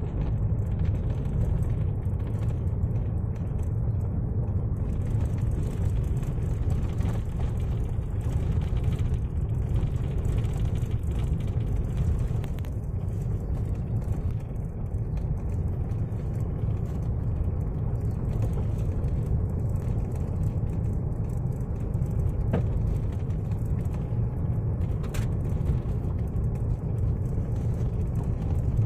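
Steady low rumble of a car driving, engine and tyre noise heard from inside the cabin, with a couple of faint clicks in the second half.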